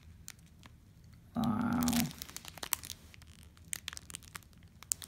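Clear plastic bags of diamond-painting drills crinkling and clicking as they are handled, with scattered sharp clicks. About a second and a half in, a short hum of a voice, lasting about half a second, is the loudest sound.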